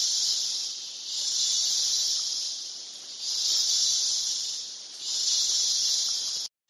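Rainforest insects buzzing in a loud, high, hissing chorus that swells and fades in waves about every one and a half to two seconds. The sound cuts out abruptly for a moment near the end.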